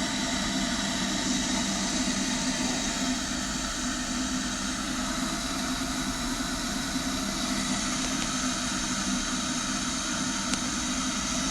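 1.8-litre electric kettle heating water, a steady rushing hiss with a faint hum; it starts and cuts off abruptly.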